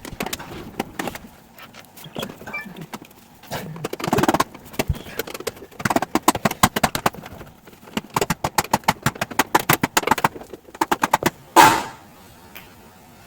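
Quick runs of sharp clicks and rattles, with a louder knock near the end, from hands working on the parts of a dishwasher.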